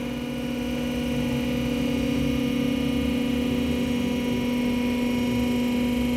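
Electric motor of a car lift running steadily with a constant hum, raising the car.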